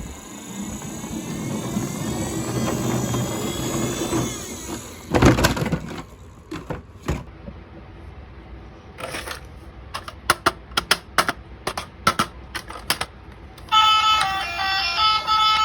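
A battery toy's small motor whirs and rises in pitch for several seconds, then a loud clatter and a run of irregular plastic clicks follow. Near the end an electronic beeping tune starts.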